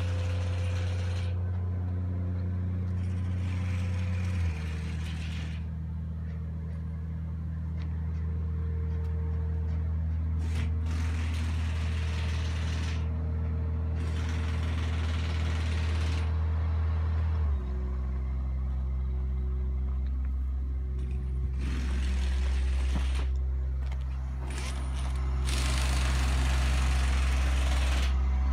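Caterpillar D8T crawler dozer's diesel engine idling steadily, its pitch shifting slightly about four seconds in and again past halfway, with hiss that comes and goes.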